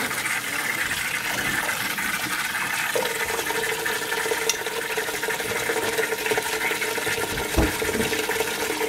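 Tap water running in a steady stream into a stainless steel bowl of water while smelt are rinsed by hand in it. A steady whine joins about three seconds in, and there is a knock near the end.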